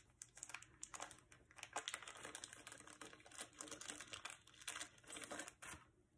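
Small plastic zip-top bag crinkling and crackling in the hands as a necklace is taken out of it: a quick, irregular run of light crackles that stops shortly before the end.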